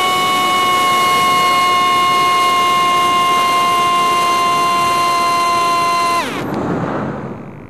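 Quadcopter electric motors and propellers whining at high, steady throttle during a climb, the pitch easing down slightly. About six seconds in the whine drops sharply as the throttle is cut, leaving only the rush of air.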